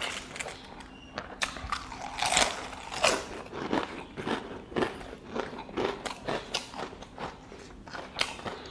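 Close-miked chewing with crisp crunches, as a mouthful of rice mixed with ridged potato chips is eaten, in an irregular run of strokes about every half second to second.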